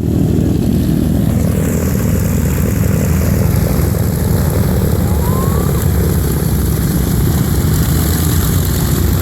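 Grumman TBF Avenger's 14-cylinder Wright R-2600 radial engine running steadily on the ground, its propeller giving a loud, even drone.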